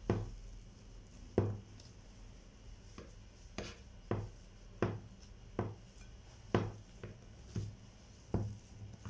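Metal wire potato masher pressing boiled potatoes in a ceramic bowl: a series of dull knocks, about one every three-quarters of a second, as the masher hits the bottom of the bowl through the mash.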